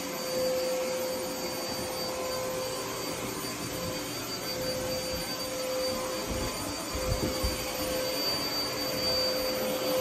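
Vacuum cleaner running steadily, a motor whine over a rushing hiss, with a few low bumps about six to seven seconds in.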